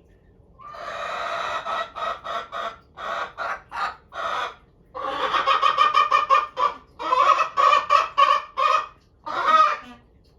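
Araucana hens giving loud, insistent calls: a long call followed by a run of short repeated notes, then a second run after a brief pause. It is their demand to be let out of the coop for a walk.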